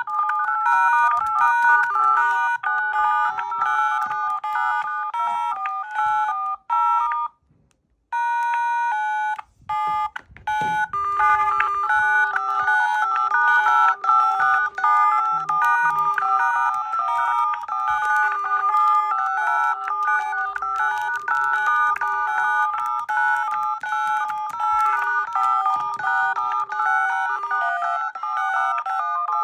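Mobile phone ringtone: a synthesized melody of short repeating notes. It drops out briefly about seven seconds in and again around ten seconds in, then plays on.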